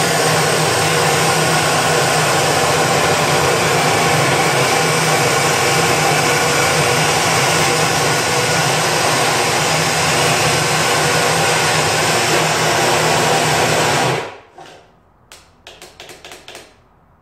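Chicago Electric 14-inch abrasive cut-off saw with a 15 amp motor grinding through 3x3 quarter-inch steel, a loud steady grinding whine that stops abruptly about fourteen seconds in.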